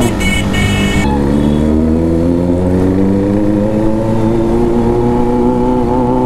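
Motorcycle engines on the move, the engine note climbing slowly and steadily in pitch as the bikes accelerate through the gears. In the first second a short high two-part tone sounds over the engines.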